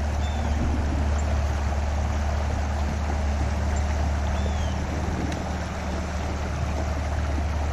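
Steady wind rumbling on the microphone over the background hiss of open countryside, with a few faint high chirps.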